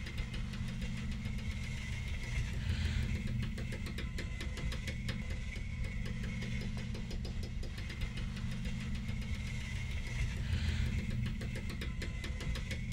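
Steady low mechanical drone with a fast, even rattle running through it, like a big machine idling. A hissing swell rises and fades about two and a half seconds in and again about eight seconds later.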